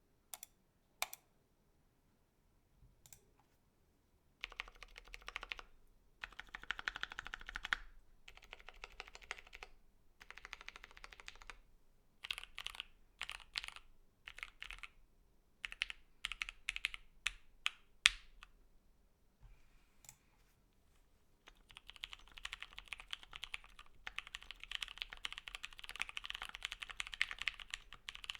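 Mechanical keyboard being typed on: lubed and filmed Matrix Lab FFFF tactile switches under PBT keycaps on a foam-filled gasket-mount 65% board. A few single keystrokes come first, then bursts of typing and a run of separate key presses with one sharper clack, and fast continuous typing near the end.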